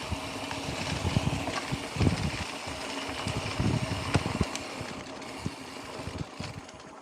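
Mountain bike riding downhill over rough trail: wind rushing over the microphone, with low thumps and sharp rattles from the bike over bumps.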